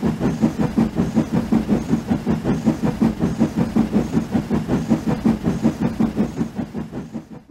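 Steam train running, with a steady rhythmic beat about four times a second that fades out near the end.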